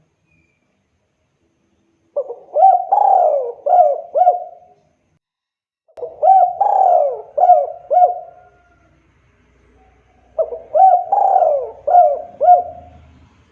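Spotted dove (tekukur) singing: three cooing phrases a few seconds apart, each a run of about five rolling coo notes.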